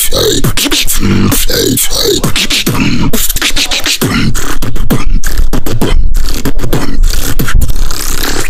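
Live beatboxing: deep falling bass wobbles punctuated by sharp kick and snare sounds, breaking about halfway into a fast, dense run of rapid clicks and snares.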